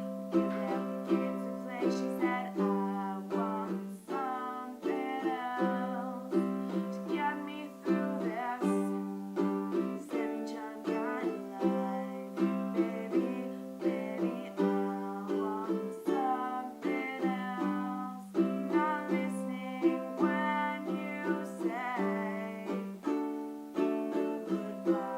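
Music on a plucked string instrument, with notes picked in quick succession over steady low sustained tones.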